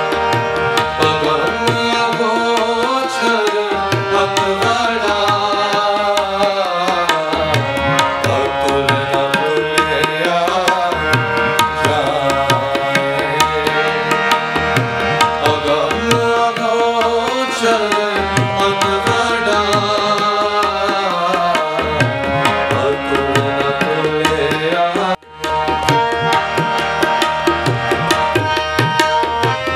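Devotional Sikh shabad music: tabla playing a steady rhythm under a melody of long held and gliding notes. The sound cuts out briefly about 25 seconds in.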